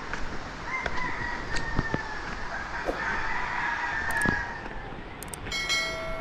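A rooster crowing, one long drawn-out call starting about a second in and lasting over three seconds.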